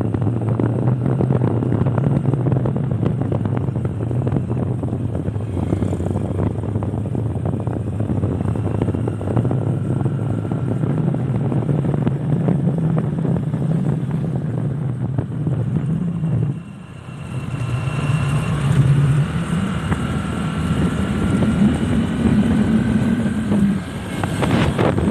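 Motor vehicle engine running steadily while driving. About 17 seconds in, the engine note dips briefly, then comes back and climbs in pitch.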